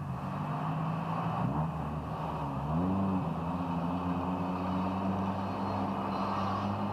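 Inline four-cylinder car engine heard from inside the cabin, running steadily in slow traffic. The engine note dips and then climbs back up about three seconds in, then holds steady, over road and tyre noise.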